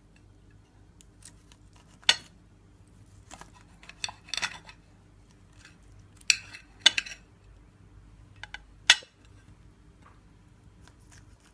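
Kitchen utensils and dishes clinking and knocking while mandarins are cut and squeezed for juice by hand. About half a dozen sharp knocks are spaced irregularly, a second or more apart, with short scraping sounds between them.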